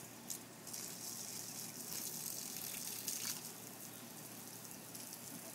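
Water spraying from a garden hose nozzle in a steady hiss, briefly louder twice, near the start and about three seconds in.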